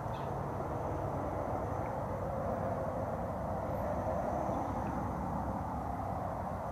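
Steady outdoor background noise, an even hiss with a low hum under it and no distinct events.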